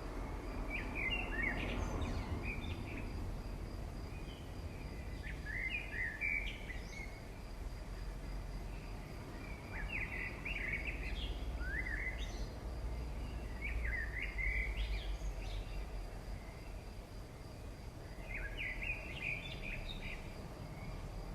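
A bird singing, repeating a short chirping phrase about every four seconds, over a steady low background noise.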